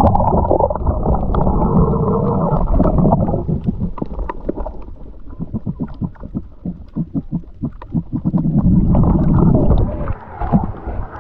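Water heard through a camera held underwater in the sea: a muffled rumbling and gurgling, with a splash as it goes under at the start and a run of quick clicks and pops in the middle. Near the end it breaks the surface and the sound opens up again.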